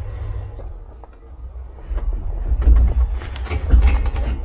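Tesla Cybertruck's all-terrain tires rolling slowly over a dry, sandy dirt trail, crunching and crackling over sticks and debris, with a heavy low rumble of the truck body and wind on the outside mic. The crunching grows busier and louder from about two seconds in.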